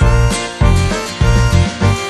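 Background music with a steady beat, about two bass pulses a second, under a sustained melody.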